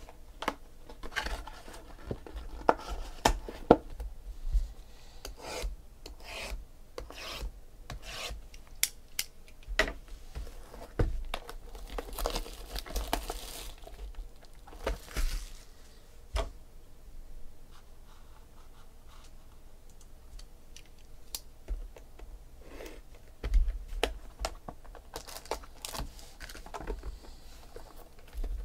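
Hands handling a cardboard trading-card box and its wrapped packs: rubbing, rustling and crinkling of wrappers and cardboard, with many sharp taps and clicks as packs are pulled out and set down.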